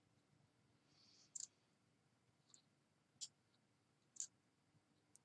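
Near silence with a few faint clicks from a small plastic liquid lipstick tube being handled.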